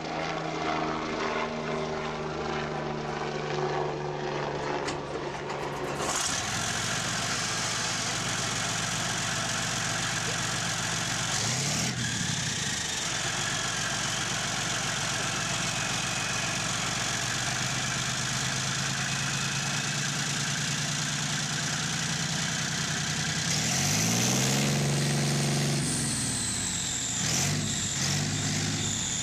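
Leopard 2 tank's V12 twin-turbo diesel running after start-up, with a loud hiss joining about six seconds in. The engine is revved up and back down briefly around the middle, harder about three-quarters of the way through, and once more near the end.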